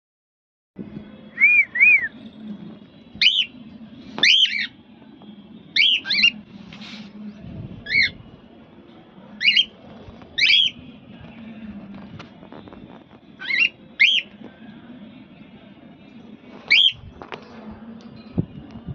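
Cockatiel calls: short, loud whistles that rise and fall, given singly or in quick pairs every second or two.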